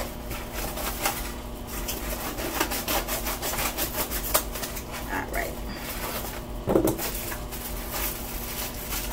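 A mailed package being cut open with scissors and handled: snipping clicks and rustling, scraping packaging, with a louder knock about two-thirds of the way through.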